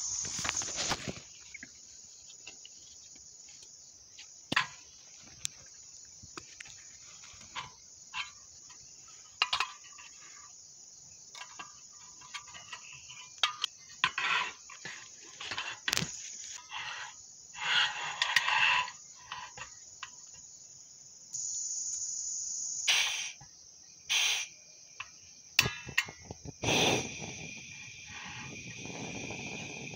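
Crickets chirring steadily, with rustling and clicking as gear and a portable gas stove are handled. Near the end the stove is lit and its burner hisses.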